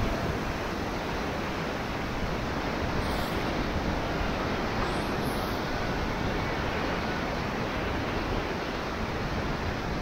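Steady rush of fast river water and rapids around an inflatable raft, with wind on the microphone.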